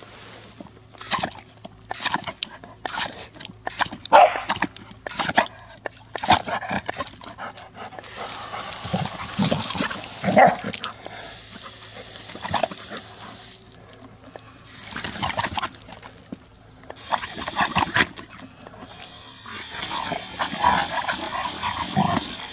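Golden retriever barking sharply, about two barks a second for the first several seconds. Then a garden hose's pistol spray nozzle hisses on and off in spurts, with a few more barks in the gaps.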